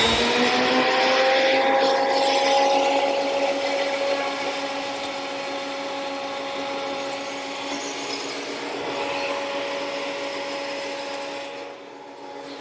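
Benchtop thickness planer's motor and cutterhead coming up to speed, then running steadily with a high whine. It gets quieter near the end.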